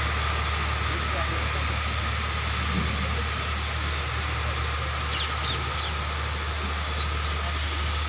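A steady low mechanical hum, like an engine running, with faint voices in the background.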